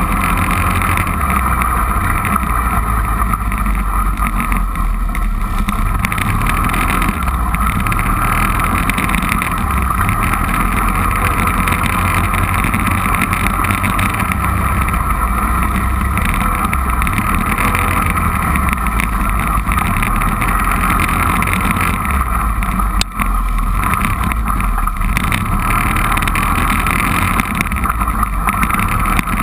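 Four-wheeler (ATV) engine running steadily under way, heard from on board the moving machine.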